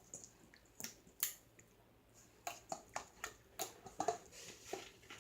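Sticky jiggle slime squeezed and pressed in the hands, giving irregular short clicks and pops.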